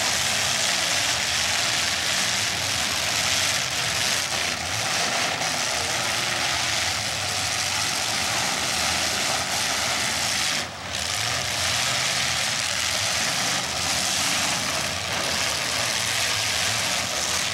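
Engines of several demolition derby cars running together, a loud, steady mass of engine noise, with one brief drop in level a little past the middle.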